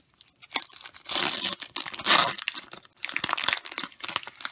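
Foil trading card pack wrapper being torn open and crinkled by hand: irregular bursts of tearing and crackling foil, the loudest about two seconds in.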